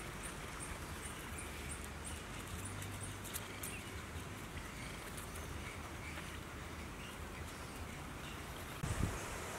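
Quiet outdoor ambience: a steady low hiss with a faint, high, rhythmic ticking about three times a second at the start, a few light clicks a little past the middle, and a couple of low bumps near the end.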